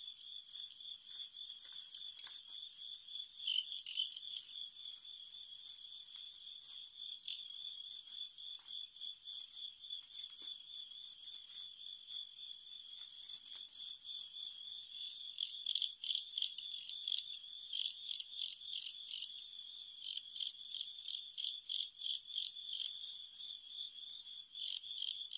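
Crickets stridulating: a continuous high trill, joined from about two-thirds of the way in by louder, evenly spaced chirps, about three a second, as fighting crickets sing at each other.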